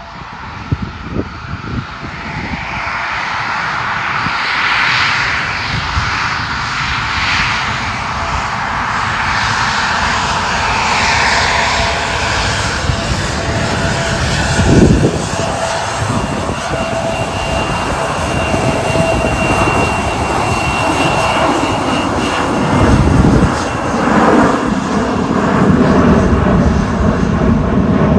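Bombardier CRJ700 regional jet's two rear-mounted GE CF34-8C turbofans at taxi power: a steady rushing jet noise with a high whine held through it. There is a brief low rumble about halfway through and another a little past three-quarters of the way.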